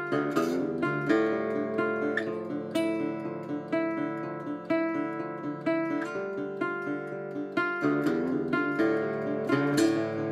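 Solo acoustic guitar music played on a Levin guitar from about 1930: fingerpicked notes over a steady low bass, with a strummed chord now and then.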